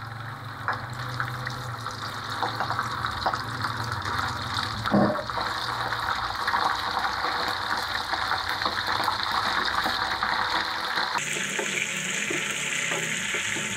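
Starch-and-egg-coated chicken slices frying in hot oil in a non-stick pan: a dense crackling sizzle that starts as the chicken goes in. There is a single knock about five seconds in, and the sizzle turns to a steadier, higher hiss near the end.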